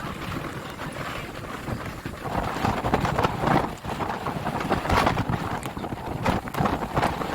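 Strong gusting wind buffeting the camera microphone, a rushing roar that swells louder about two seconds in and keeps surging.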